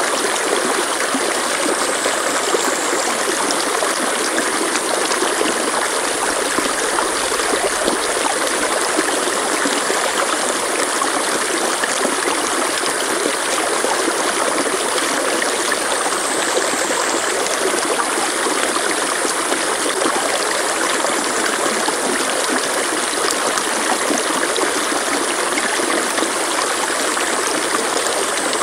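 Mountain stream rushing over rocks, a steady, even rush of water. A thin high-pitched tone rides above it and dips briefly three times.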